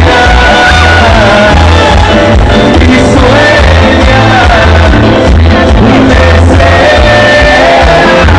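Loud music with a heavy, pulsing bass beat and a melody line over it.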